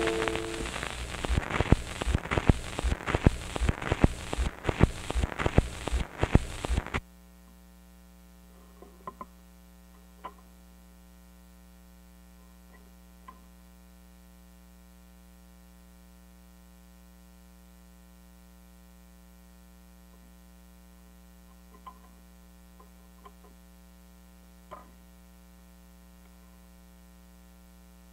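Heavy surface crackle and loud pops from a stylus riding a home-recorded Recoton disc. About seven seconds in it cuts off suddenly to a steady mains hum from the playback system, with a few faint clicks and taps as the disc is handled and turned over.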